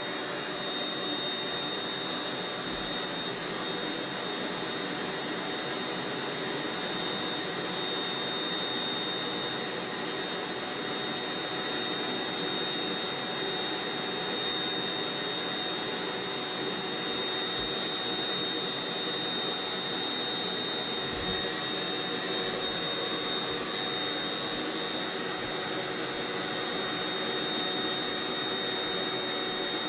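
Intex air bed's built-in electric pump running steadily and blowing air into the mattress as it inflates. It makes an even rush of air with a thin, steady high whine.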